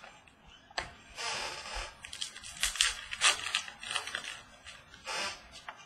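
Rustling and crinkling of trading cards and pack wrappers being handled. There is a hissing rustle about a second in, a run of sharp crinkling clicks in the middle and another short rustle near the end.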